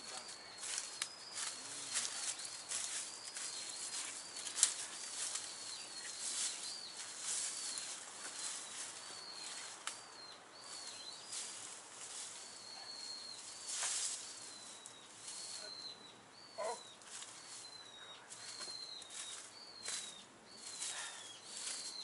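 A bird calling over and over with a short high note, about one and a half calls a second. Under the calls are irregular scratchy strokes and rustles of branches being cut and handled, with one sharp click about four and a half seconds in.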